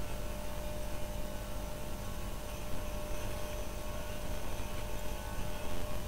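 Steady electrical hum with a hiss, from the running high-pressure sodium lamp setup and its ballast while the lamp warms up.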